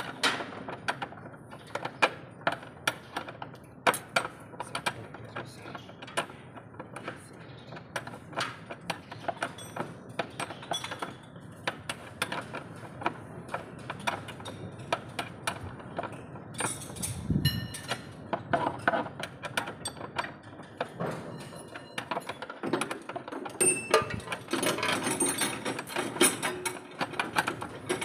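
Irregular metallic clicks and clinks of hand tools on steel, with ratchet-like clicking, from work on a truck's engine and transmission mount bolts. A single dull thump comes a little past halfway.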